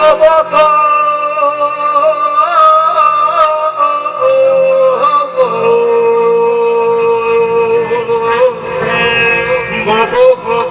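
Live band music: a long, wavering melody line held over the band, with sharp drum strikes at the start and again near the end, and low notes filling in about halfway.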